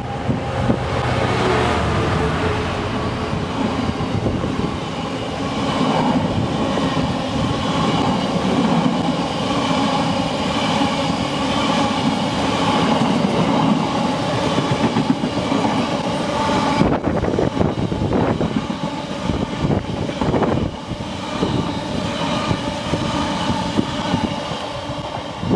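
Class 66 diesel freight locomotive passing through close by, followed by a long train of covered hopper wagons rolling steadily past. The wheels rumble and clatter over the track, with sharper knocks in the second half.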